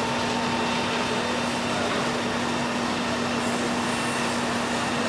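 Heavy diesel equipment running steadily: fire apparatus pumping a water stream and a demolition excavator. It makes a constant drone with a steady hum under an even hiss.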